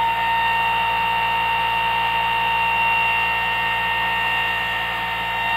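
Homemade pulse motor on a 12-volt, four-drive-coil run, going steadily: a constant high-pitched whine with higher overtones over a low buzz, holding the same pitch throughout.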